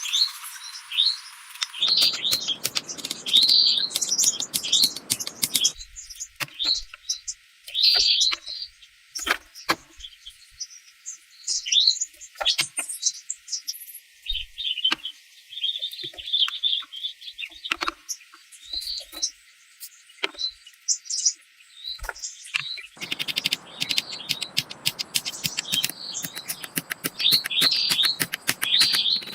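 Small songbirds chirping in short, repeated calls, with scattered sharp clicks and taps through the middle part.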